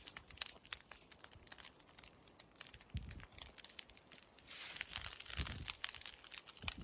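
Burning straw and dry leaves crackling, with rapid irregular snaps and pops and a soft rushing hiss. A couple of low thumps come about three and five and a half seconds in.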